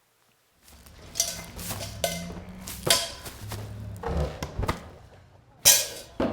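A run of foley sound effects: sharp knocks, thuds and rustling noises one after another, with short low steady tones between them, starting about half a second in.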